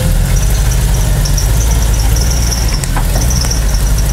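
Off-road Jeep Wrangler's engine running at low speed as it crawls over rough ground, a deep steady rumble, with a thin high squeal that comes and goes over it.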